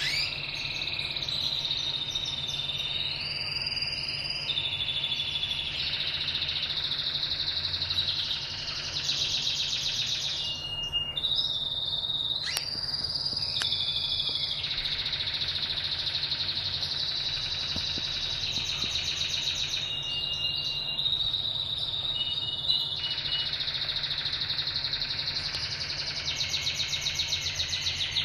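Canary singing a long, continuous song of rolling trills and held whistled notes, with quick, rapidly repeated trills near the end. The singer is a yellow Gibber Italicus canary.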